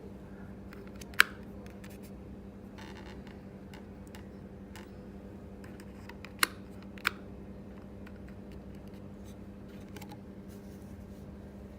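A steady low hum and hiss with no notes played, broken by three sharp clicks: one about a second in and two close together a little past six seconds.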